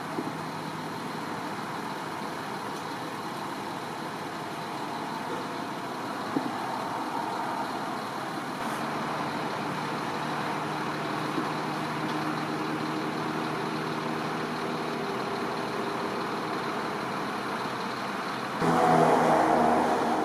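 Highway traffic noise, with a vehicle engine humming steadily from about halfway through; a louder vehicle swells up near the end.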